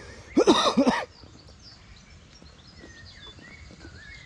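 A man's short, hoarse, cough-like vocal burst about half a second in, then quiet outdoor ambience with faint bird chirps.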